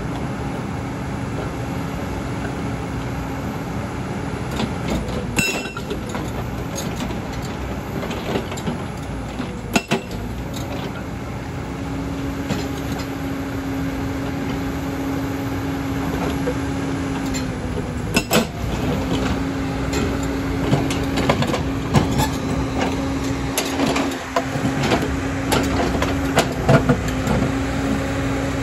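JCB tracked excavator running with its hydraulic rock breaker hammering into a pile of large stones. A steady drone drops out briefly a few times, and scattered sharp knocks and clatter of stone come more often in the second half.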